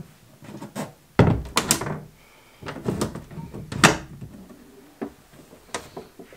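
Red hard carrying case of a Bernina sewing machine handled on a wooden table: a series of knocks and clunks as it is set down, unlatched and its cover lifted off, the loudest a little before four seconds in.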